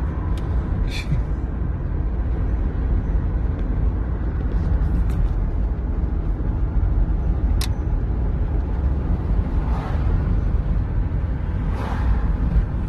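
Steady low road and engine rumble inside a moving car's cabin, with a few brief sharp clicks.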